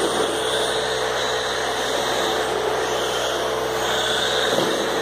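Radio-controlled racing cars running laps on a carpet track: a steady high motor whine and tyre hiss that swells and fades as cars pass.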